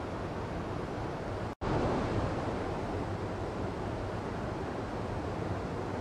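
Mountain stream rushing and splashing over boulders in a steady whitewater rush, cut by a sudden split-second drop-out about one and a half seconds in.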